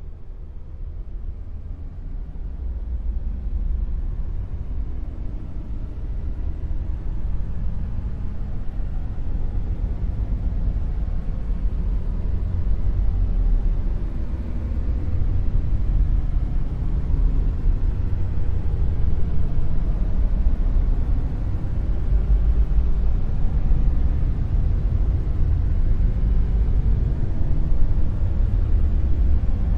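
Dark noise: an even, deep noise with most of its energy in the bass and little treble, rising in level over the first several seconds and then holding steady.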